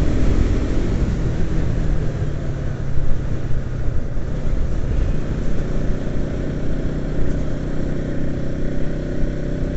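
Motorcycle engine running steadily while riding at cruising speed, with wind and road noise.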